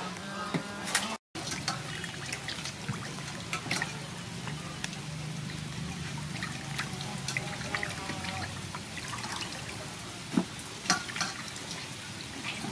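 Hands washing raw chicken gizzards in a stainless steel bowl of water: steady sloshing and splashing with small drips, and two sharper splashes near the end.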